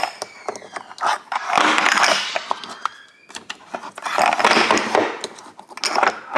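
Spice jars being set into and shuffled along a bamboo spice rack in a drawer: quick clicks, knocks and scraping, in two busy bursts about a second and a half in and around four seconds in.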